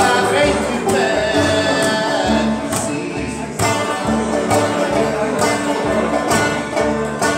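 Bluegrass band playing live: acoustic guitar strumming, five-string banjo picking and upright double bass plucked on a steady beat of about two low notes a second.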